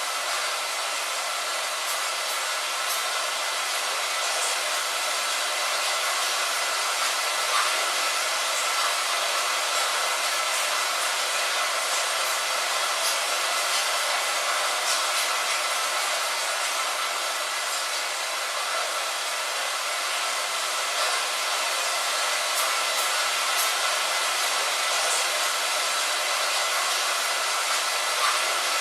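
Steady rain on a window: an even, thin hiss with no deep rumble, with a few faint droplet taps scattered through it.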